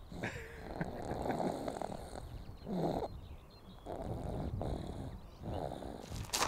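A sleeping baby snoring softly in uneven, rough breaths. A sharp tap comes near the end.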